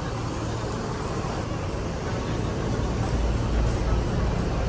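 Large intercity bus's diesel engine idling, a steady low rumble that grows louder about three seconds in.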